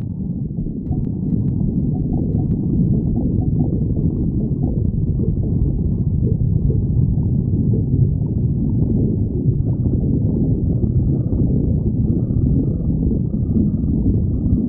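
A stomach growling: a continuous low rumbling gurgle that goes on without a break.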